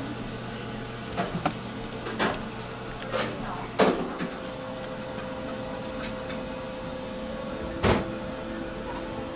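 Kitchen work: raw chicken breast fillets being handled in a stainless steel tray, with a few short clicks and knocks, the loudest about eight seconds in. Under it runs a steady kitchen equipment hum that changes pitch about four seconds in.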